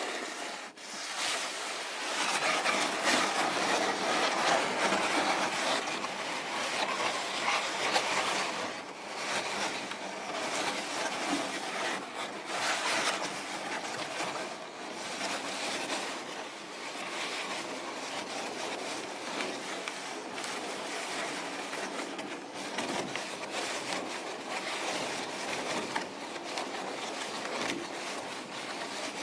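Contemporary chamber music played with noise techniques: dense rubbing and scraping textures with no clear pitches, starting suddenly and continuing at a fairly even level.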